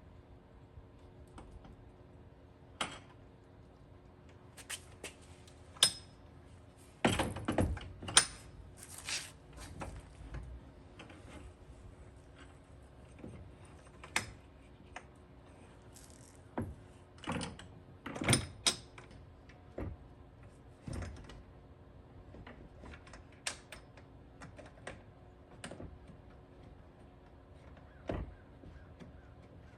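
Irregular clicks, clinks and knocks of metal parts and tools being handled while new rear-glass hardware is fitted, busiest about seven and eighteen seconds in, over a faint steady hum.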